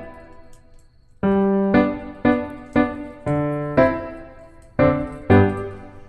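Piano background music: single notes struck about every half second, each ringing and fading, after a brief pause near the start.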